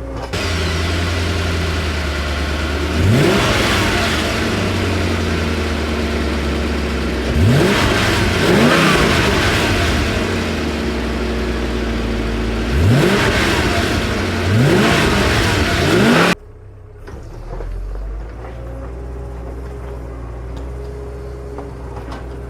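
Dump truck's diesel engine running hard and revving up about five times, the pitch climbing on each rev as the truck strains to pull out of deep mud and water. About 16 seconds in the sound drops off abruptly to a quieter, steady engine hum.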